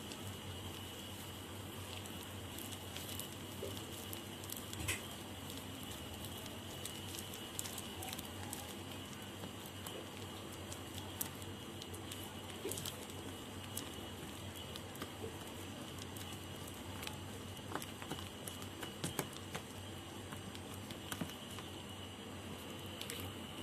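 A hand beating and mixing thick urad dal batter in a bowl: soft, irregular wet squelches and pats over a steady background hiss.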